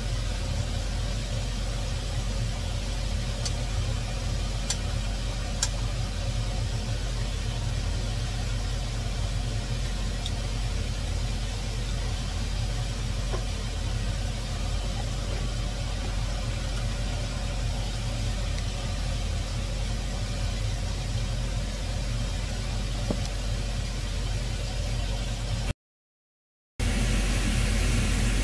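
A steady low hum with a constant hiss, like a machine running. There are two faint ticks about five seconds in. Near the end the sound cuts out for a moment, then returns a little louder.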